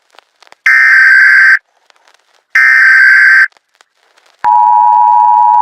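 Loud electronic beep tones: two identical high beeps, each just under a second long, about a second apart. About four and a half seconds in, a lower steady tone starts and holds.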